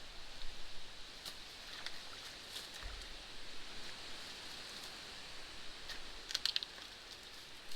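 Faint rustling over a steady soft hiss, with scattered light clicks and a short cluster of crackles near the end, and one dull low thump about three seconds in.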